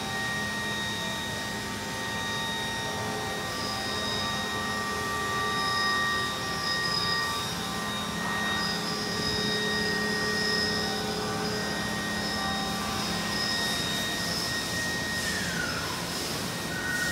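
Machine-shop noise of running CNC machining centers: a steady hum with several high, even whines. Near the end one whine falls in pitch.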